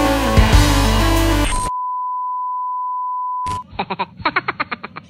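Background music that cuts off about a second and a half in, then a steady electronic beep tone held at one pitch for about two seconds. A person's voice starts talking near the end.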